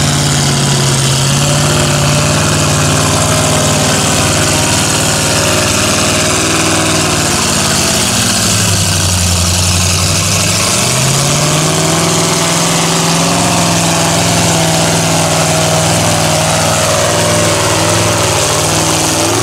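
Lifted mud-bogging pickup truck's engine running hard under load as the truck ploughs through a deep, water-filled mud pit. Its note sags about eight seconds in, climbs back a few seconds later and then holds steady.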